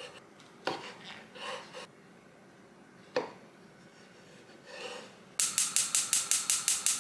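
A few knife cuts through mushrooms onto a wooden cutting board. About five and a half seconds in, a gas stove's igniter starts clicking rapidly, about eight clicks a second, as the burner is lit.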